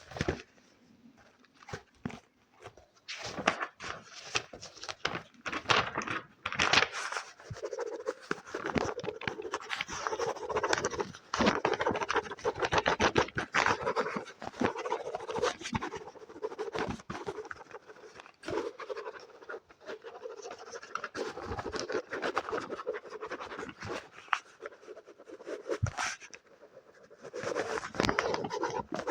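Fast scratching and rubbing close to the microphone, with many quick taps mixed in: ASMR trigger sounds.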